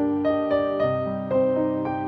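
Background piano music: gentle held notes, a new one every quarter to half second.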